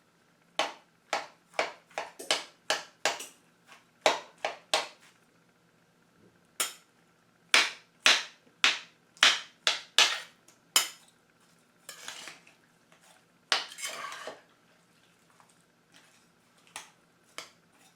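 A kitchen utensil clinking and tapping against a bowl as butter is added to the hot drained pears: runs of sharp taps about two a second, then two short scrapes, with a few faint ticks near the end.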